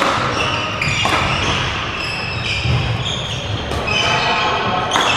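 Sports shoes squeaking on a wooden sports-hall floor, many short high squeaks overlapping, with a few sharp knocks: one at the start, one about a second in and one near the end.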